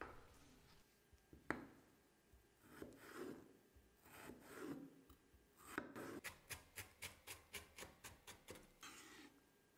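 Chef's knife cutting cucumber on a wooden cutting board. There is one sharp knock near the start and a few soft slicing strokes, then about three seconds of quick, even chopping at about five taps a second.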